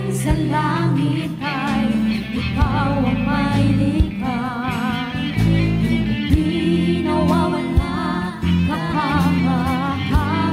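Worship band performing a gospel song: voices holding long notes with vibrato over bass, guitar and drums.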